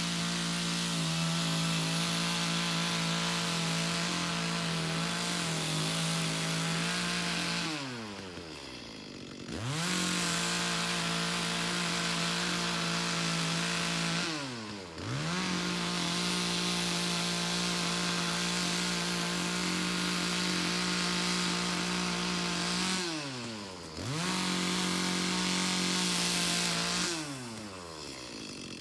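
Two-stroke chainsaw running at high revs while cutting green logs meant for growing mushrooms. Four times the throttle is released, and the revs fall toward idle and then rise again.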